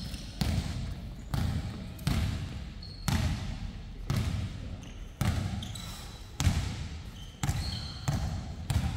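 A basketball being bounced on a gym floor, about one bounce a second, each bounce echoing briefly, with a few short high sneaker squeaks between.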